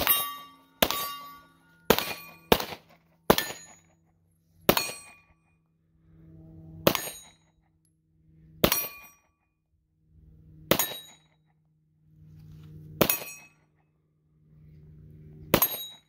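A 9mm pistol-caliber carbine built on a Glock 34 slide firing single shots at steel targets, each shot followed by a bright ring of struck steel. There are five quick shots in the first three and a half seconds, then six slower ones about two seconds apart.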